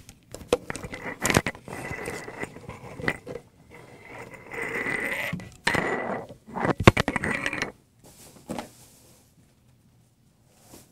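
Clip-on lapel microphone being unclipped from a tie and handled, rubbing against clothing with a run of clicks, scrapes and rustles. The sharpest knock comes about seven seconds in, and the handling stops about a second later.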